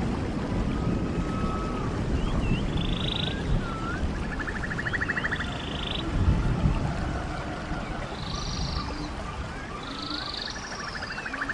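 Running stream water with a steady rushing sound, and birds calling over it: short whistled notes and buzzy trills that recur every few seconds.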